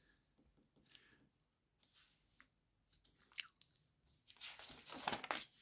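A glossy magazine page being handled and turned: a few faint ticks, then a short paper rustle and slide about four seconds in.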